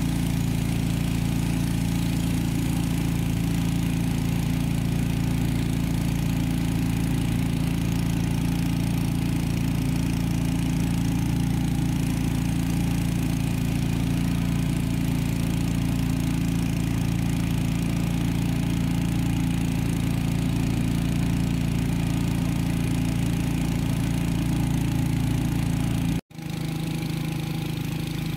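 Motorboat engine running steadily at speed, with water rushing along the hull. Near the end the sound cuts out for an instant and comes back with the engine a little lower.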